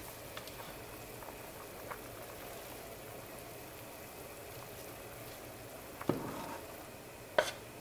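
Pot of soup bubbling steadily on the stove. A serving spoon knocks against a dish about six seconds in, and there is a sharper clink near the end as cooked sausage is scooped from a ceramic bowl into the pot.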